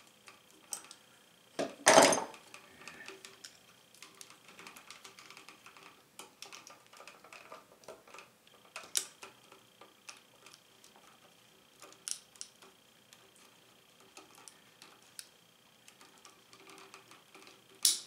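Pliers and copper wire being handled while wiring a plastic electrical outlet: scattered small clicks and rustles, with a sharp clack about two seconds in and a few louder clicks later.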